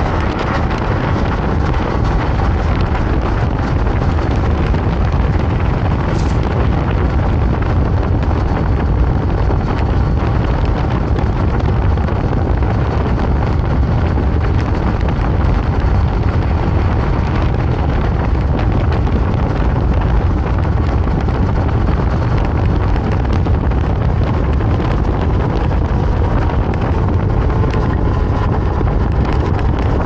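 Wind rushing over the microphone of an electric scooter ridden at speed, a steady, unbroken noise heavy in the low end. A faint whine from the scooter's electric motor runs underneath.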